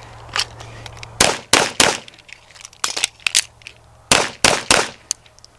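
Gunfire in quick strings of shots: three loud shots in fast succession about a second in, fainter shots in between, and three more loud shots about four seconds in.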